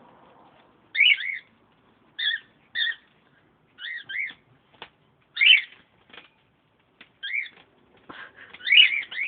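Pet lovebird giving short chirping calls, many in pairs and each rising then falling in pitch, every second or so.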